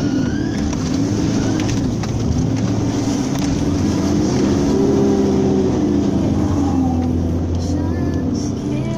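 Creaking and grinding noises from a vehicle, with a pitched tone that rises and falls over a steady low rumble.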